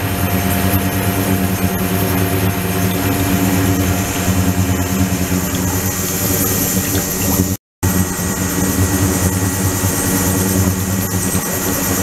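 Flowing-water ultrasonic cleaning tank running: a steady low mechanical hum under the hiss and splash of water pouring into and circulating through the stainless tank. The sound cuts out for an instant about two-thirds of the way in.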